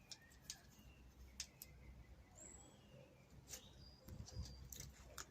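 Near silence, with faint scattered clicks and a few faint, short high chirps.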